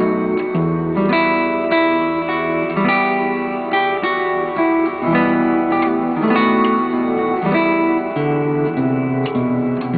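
Solo acoustic guitar playing a slow melody over a bass line, single plucked notes ringing on.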